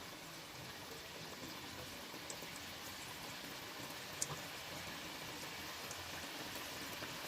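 Steady hiss of food cooking on the stove, like bubbling or sizzling in a pan, with a couple of faint small clicks.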